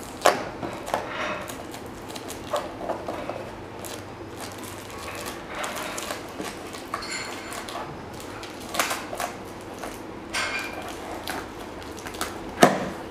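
A small cardboard box being handled and picked at: irregular light scrapes, rustles and clicks of fingers on cardboard, with sharper knocks of the box against a wooden tabletop just after the start and near the end.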